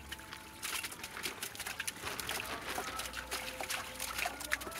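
Shallow water splashing and trickling in many quick small splashes as hands work through a cast net holding prawns and fish.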